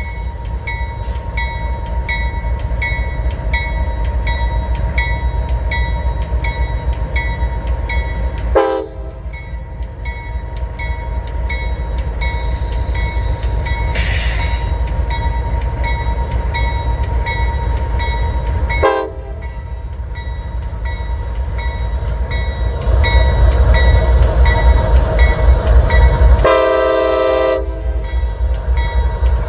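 Diesel locomotives of an empty coke train running as it pulls out, with a bell ringing steadily about twice a second. Two short horn toots come about a third and two thirds of the way in, and the engines grow louder near the end. A longer blast on the lead unit's K5LA air horn sounds just before the end.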